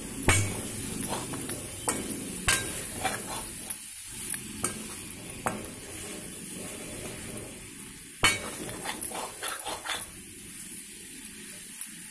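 Boiled potato chunks and onion-tomato masala sizzling in a metal kadai while a metal spatula stirs and scrapes them, with sharp clinks of the spatula against the pan, the loudest about eight seconds in.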